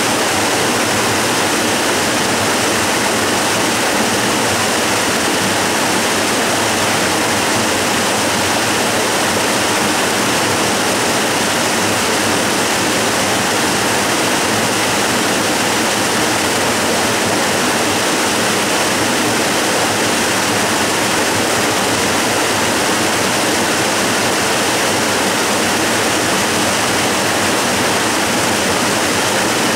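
Waterfall rushing steadily, an even, unbroken hiss of falling water that is mostly bright, with little deep rumble.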